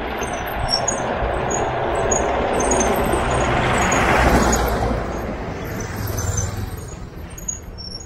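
A small flatbed truck drives past close by, its engine and tyre noise swelling to a peak about four seconds in and then fading. A motorcycle's engine follows shortly after.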